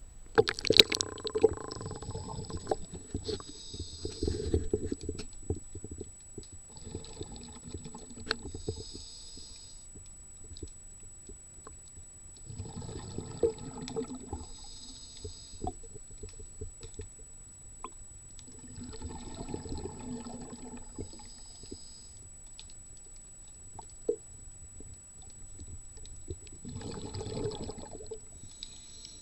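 Scuba diver breathing through a regulator underwater: a hiss of drawn air and a burst of bubbling exhaust, five breaths about six seconds apart.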